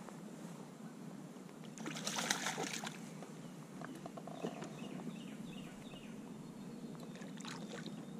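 A hooked fish splashing and thrashing at the water's surface beside a kayak, with one loud splash about two seconds in and smaller splashes after.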